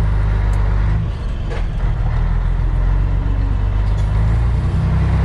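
Scania 112 truck's 11-litre six-cylinder diesel running steadily at low speed, with a brief dip in level about a second in.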